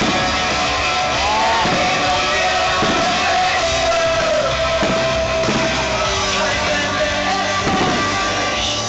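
Loud rock music over a sound system, with drum hits and a long held melody line that wavers in pitch.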